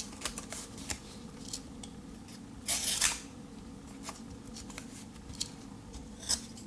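Small blade of a Victorinox Tinker Swiss Army knife cutting into something, with one louder scraping stroke about three seconds in and light clicks of handling around it.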